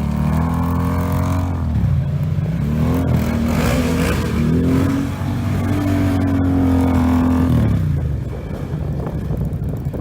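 ATV engine revving and easing off several times, its pitch rising and falling, held high for a couple of seconds in the middle, then dropping back to lower revs near the end.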